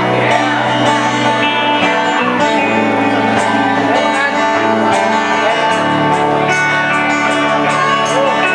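Band playing an acoustic arrangement, led by strummed and picked acoustic guitars, steady and continuous.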